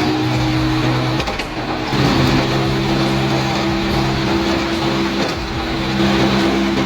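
An engine running steadily at a constant pitch. About a second in its note breaks and shifts, then it settles back into a steady run.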